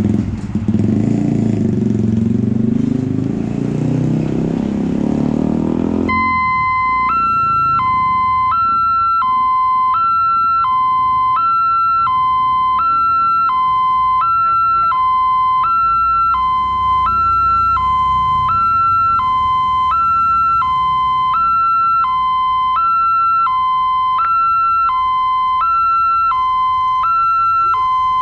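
Road traffic noise for about the first six seconds. Then a railway level-crossing alarm starts: a new-type electronic warning that alternates steadily between a lower and a higher tone, each held about 0.7 s, signalling an approaching train as the barrier comes down.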